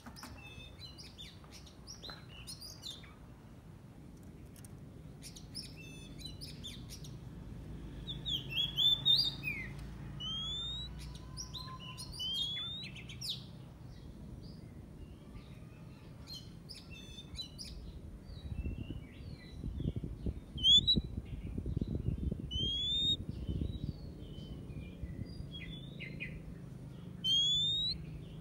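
Oriental magpie-robin singing: phrases of clear rising whistles and harsher short notes, broken by pauses. A low rumble comes in for a few seconds past the middle.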